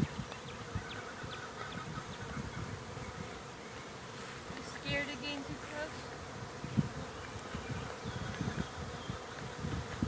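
Many honeybees flying around their hive at once, a steady buzzing hum: a burst of flight activity as the colony comes out after rain.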